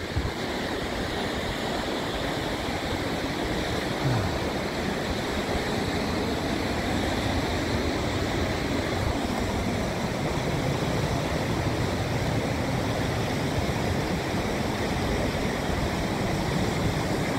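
Steady rushing wind buffeting the microphone, with a brief thump about four seconds in.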